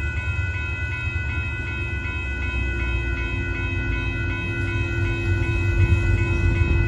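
Railroad crossing warning bells ringing in quick, even strokes over a low rumble that grows louder near the end as a Union Pacific diesel train approaches the crossing.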